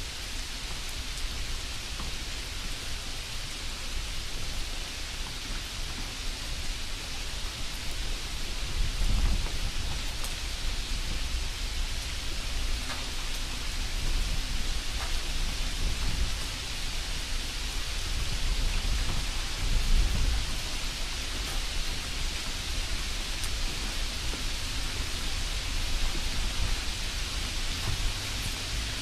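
Steady hissing noise throughout, with a few low thumps, the strongest about nine and twenty seconds in.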